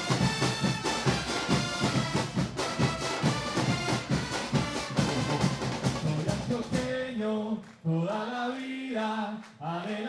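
A murga brass band, with trombones, trumpets and tuba over bass drum, snare and cymbals, plays a loud, driving tune. About seven seconds in, the drums and brass drop away and many voices sing a football chant.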